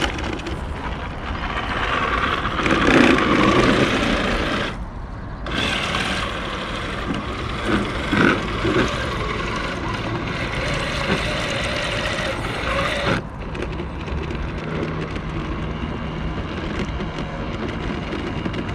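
The electric motor and gears of a cheap HB Toys RC crawler truck running as it drives through water and mud. The noise dips briefly about five seconds in.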